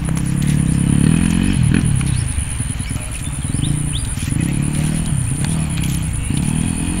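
Dirt bike engine revving, its pitch rising and falling in repeated waves every second or two.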